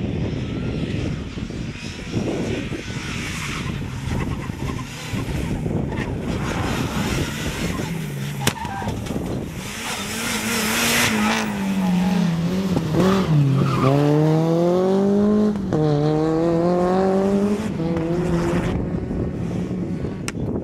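Rally-prepared Mitsubishi Lancer Evolution's turbocharged four-cylinder engine being driven hard, revs rising and falling sharply as it accelerates and brakes between turns. There is a short burst of tyre noise about halfway through, and wind buffets the microphone in the first half.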